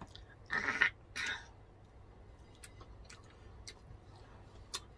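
Two short wet slurps from a person eating a cooked fish head by hand, about half a second and a second in, followed by faint scattered clicks of chewing and utensils.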